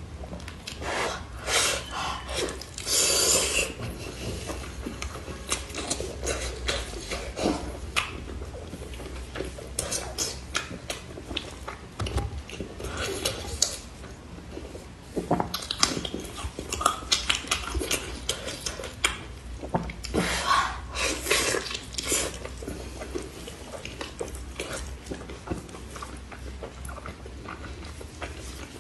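Close-miked ASMR eating of braised pork knuckle: chewing and wet mouth sounds, with gloved hands pulling the skin and meat apart, in irregular clusters of clicks. The louder bursts come about three seconds in and again around the middle.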